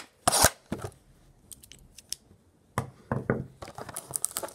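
Cardboard trading-card blaster box being handled on a table: a sharp knock and scrape about half a second in, a few light taps, then a cluster of knocks and rustles of cardboard under the fingers near the end.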